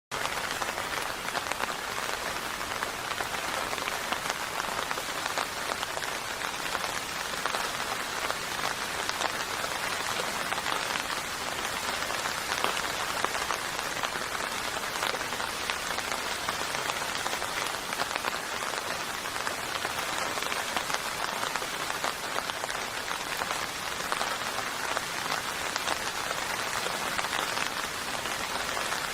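Steady rain falling, a dense even patter of raindrops with many small distinct drop ticks over it.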